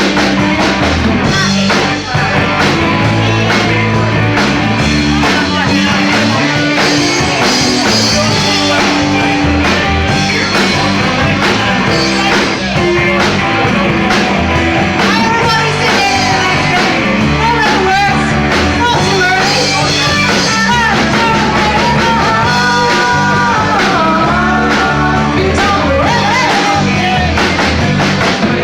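Live rock band playing, with electric guitar, bass and drums, at a steady loud level.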